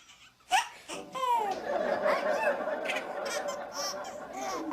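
A baby laughing: after a brief pause, a sudden loud squeal about half a second in, then a long run of giggles rising and falling in pitch.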